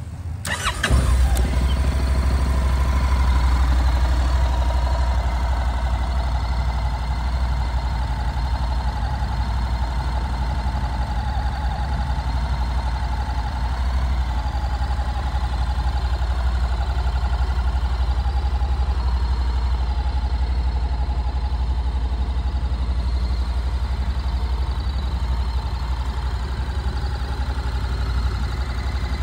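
Honda NC700X's 670 cc parallel-twin engine cranking on the starter and catching about a second in, then idling steadily.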